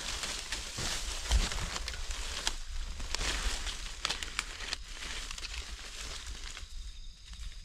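Close rustling and crackling of dry leaves and grass as gloved hands and a knife push through leaf litter, with a low thump about one and a half seconds in.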